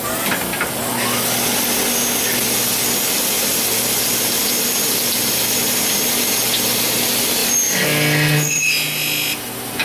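Citizen-Miyano BNX-51MSY CNC lathe running, its spindles turning while a turret-mounted drill cuts into the workpiece, a steady dense hiss with a faint hum under it. For about a second and a half near the end, a louder pitched machine hum with several tones joins in.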